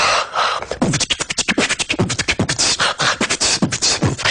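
Dubstep beatboxing: a fast run of vocal clicks and hissing snares over repeated falling bass sweeps.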